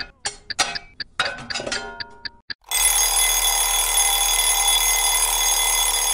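Choppy, stuttering clicks and sound fragments, then, about two and a half seconds in, a steady bell-like ringing that starts abruptly and holds.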